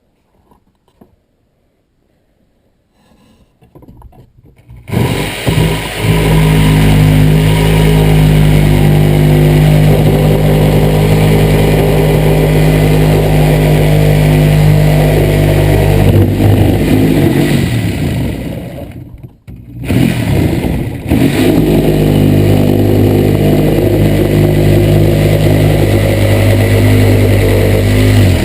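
Corded Ridgid reciprocating saw (Sawzall) starting about five seconds in and running steadily at full speed. It stops briefly near twenty seconds and starts again.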